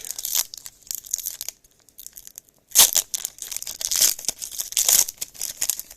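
A baseball card pack's wrapper being torn open and crinkled, in a run of crackling rips that is loudest from about three to five seconds in.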